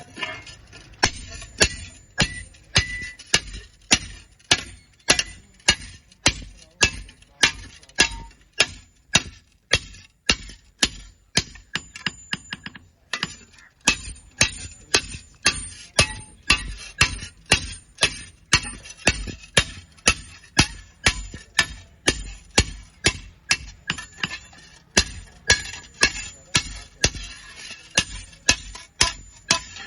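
Hammer striking iron in steady, evenly spaced blows, about two a second, each with a metallic ring. The blows pause briefly about 13 seconds in, then resume at the same pace.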